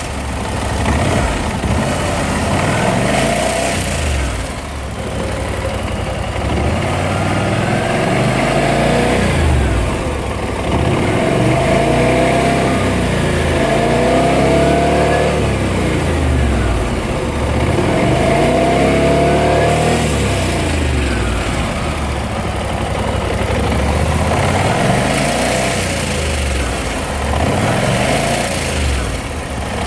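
BMW C600 scooter's parallel-twin engine running and being revved up and back down several times, with the noise the owner puts down to the timing chain.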